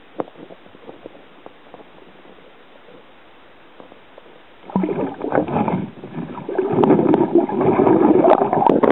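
Water splashing and churning, loud and crackly, starting about halfway through after a quiet stretch with one click near the start.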